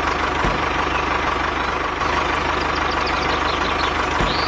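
Tractor engine running steadily with a rapid low chugging pulse.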